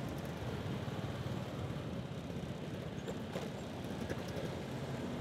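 Street traffic: a steady low rumble of motorbike engines and tyre noise on the road.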